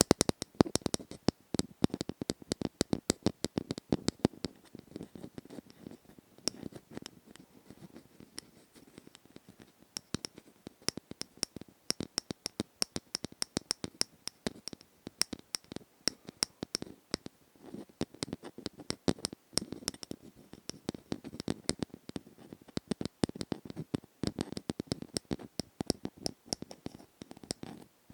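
Close-up ASMR tapping and scratching: rapid, irregular small clicks and taps, many per second, thinning out for a few seconds partway through.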